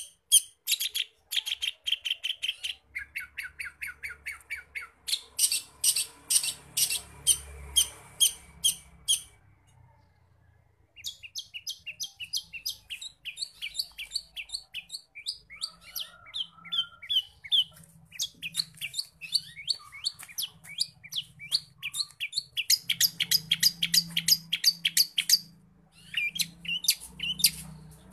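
Long-tailed shrike singing a varied song of rapid runs of sharp, repeated chirps, several notes a second, breaking off briefly about ten seconds in.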